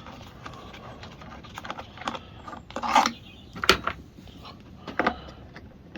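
Scattered metallic clicks and knocks of hand tools on a small mower engine as the carburettor's fixings are undone with a 10 mm socket; the loudest knocks come about three and four seconds in.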